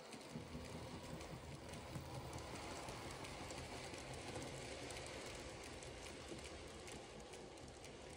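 Z-scale model freight train running on the track: a quiet, steady whirr from the small locomotive motor and rolling wagons, with faint light clicks from the wheels on the rails.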